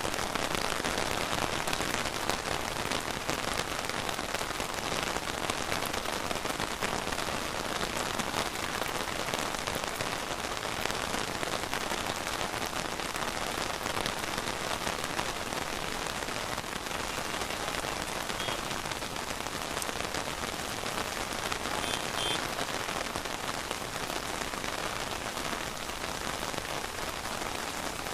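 Steady rain falling, a dense even patter of drops striking surfaces.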